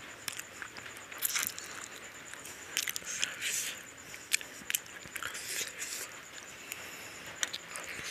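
Close-miked eating by hand: wet lip smacks and chewing of rice and curry, with fingers squishing rice and gravy on the plate, heard as a string of short clicks and smacks.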